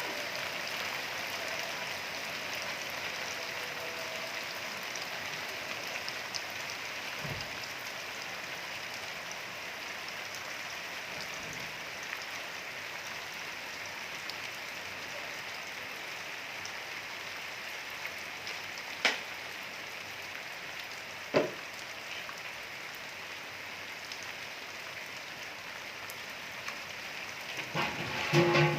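Steady rain falling, an even hiss, with two sharp knocks a couple of seconds apart past the middle.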